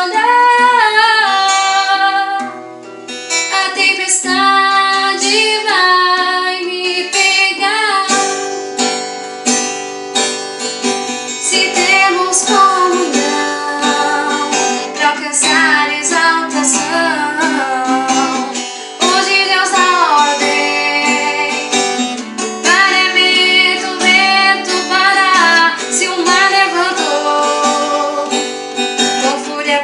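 A woman singing a Portuguese gospel hymn over strummed acoustic guitar.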